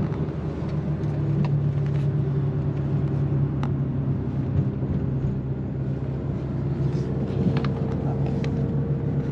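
Car running along the road, heard from inside the cabin: a steady low drone of engine and road noise, with a few faint ticks.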